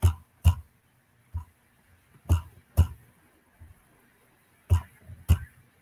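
Seven irregular computer mouse clicks, each a short sharp click with a dull thud, picked up close by the microphone, as the map is zoomed in step by step.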